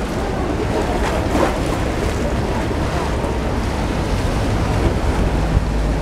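Motorboat traffic on the Grand Canal: water-taxi launch engines running with a low rumble, and wake water sloshing, with wind on the microphone. The engine hum grows stronger near the end as a launch passes close.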